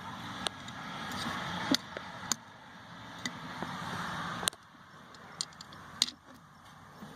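Hands handling small intake parts and screws: a rustling noise with a handful of sharp clicks and taps, the rustling stopping suddenly about four and a half seconds in.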